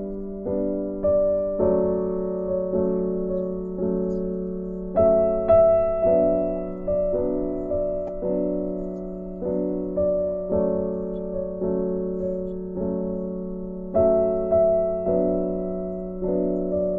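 Background piano music: soft notes struck about twice a second, each fading away before the next.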